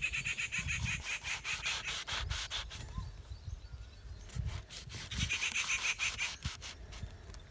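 Kitchen knife sawing back and forth through a small brinjal (eggplant) on a plastic chopping board to score slits in it. There are two spells of quick rasping strokes, the second starting about four and a half seconds in.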